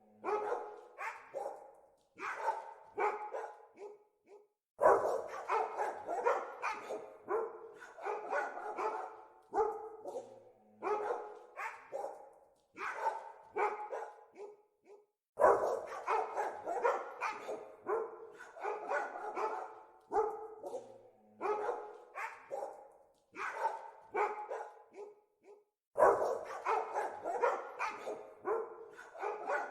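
Several dogs barking repeatedly. Dense, loud volleys of overlapping barks break out about every ten seconds, with sparser single barks and short lulls in between.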